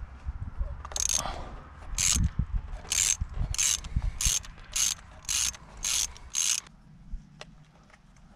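Socket ratchet clicking in about nine short back-and-forth strokes, roughly every half second, as a spark plug is unscrewed from a BMW N13 engine; the clicking stops about a second and a half before the end.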